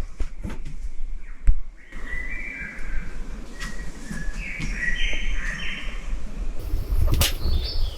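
Forest birds calling in short whistled notes for a few seconds, with a sharp knock about one and a half seconds in and another shortly before the end.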